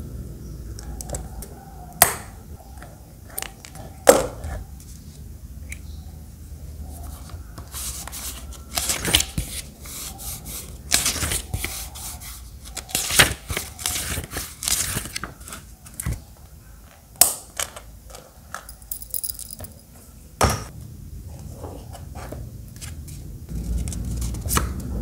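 Paper rustling as a small notebook's pages and picture postcards are handled and leafed through, in spells, with a few sharp clicks.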